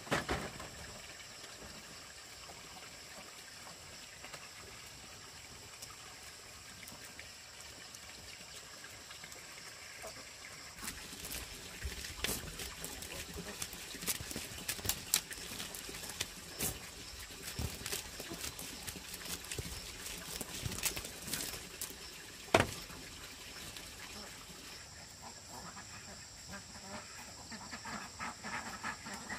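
Ducks quacking, with a run of sharp clicks and knocks through the middle of the stretch, the loudest about three-quarters of the way in, over a steady high hiss.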